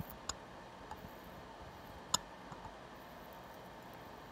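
Hand thread tap cutting new M6x1 threads in the aluminium engine block: a few faint, sharp clicks and ticks as the tap is turned and backed off to break the chips, the loudest about two seconds in.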